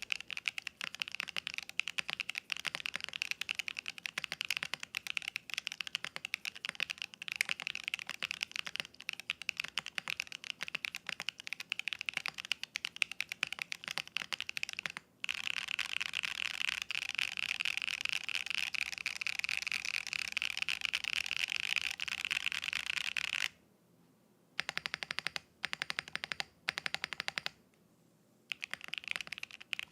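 Fast, continuous typing on a mechanical keyboard with Osume switches, an aluminium plate and no foam. The typing stops twice briefly near the end.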